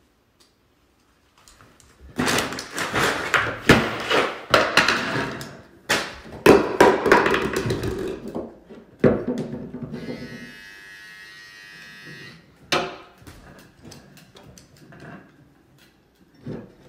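Hurried handling noise: plastic snack bags rustling and jars, bottles and toys knocking and thumping as they are swept off a wooden table, followed by a few single knocks as a tablet and a mug are set down.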